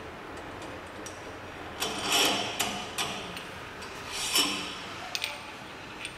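Metal parts of a wheel balancer's motorcycle adapter being handled and fitted on the balancer shaft: two scraping rubs, about two and about four seconds in, with several light metallic clicks.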